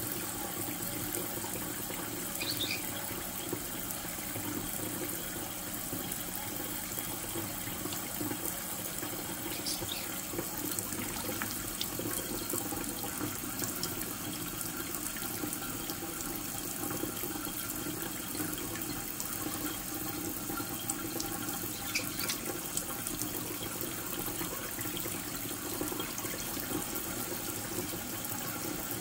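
Kitchen faucet running a thin stream into a stainless steel sink and a shallow dish of water, splashing steadily as a green-cheeked conure bathes under it. A few short, sharp high sounds stand out now and then.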